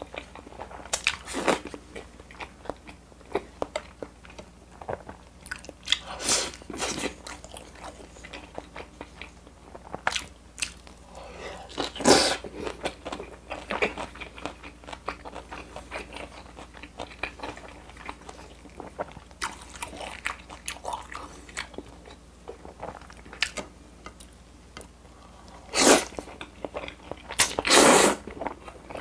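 Close-miked chewing of a mouthful of cheese-filled hamburger steak: wet smacking with many sharp mouth clicks and a few louder bursts. Near the end, loud slurps of carbonara noodles.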